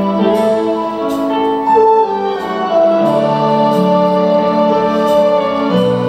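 Live band playing a slow instrumental passage: keyboard and electric guitar hold sustained chords that change about every second, with faint regular ticks high up.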